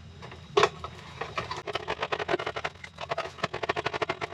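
Food sizzling and crackling in a hot cast iron pan, with a sharp hit about half a second in, after which the crackle grows busier and denser.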